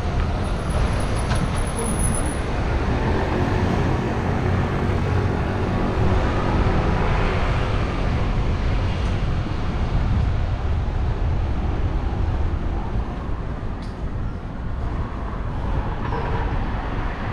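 A car driving: steady engine and tyre noise with a strong low rumble, the engine note rising and falling a little in the first half.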